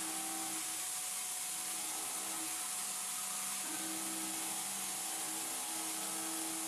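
CNC milling machine cutting a metal block with an end mill: a steady high hiss with a low spindle hum that drops out and returns a couple of times.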